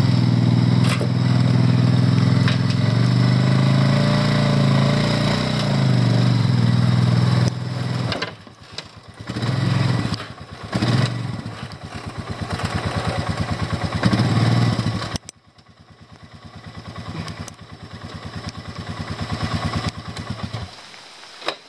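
ATV engine running loud and steady, then going uneven as the throttle changes; about two-thirds through it drops suddenly to a quieter, pulsing idle, which stops shortly before the end.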